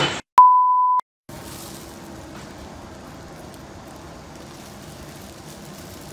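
A single steady, high-pitched electronic beep lasting just over half a second, with dead silence on either side of it. Faint, steady background noise follows.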